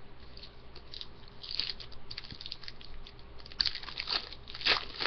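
Clear plastic wrapper on trading cards crinkling as the cards are handled, with irregular crackles and a few sharper ones near the end.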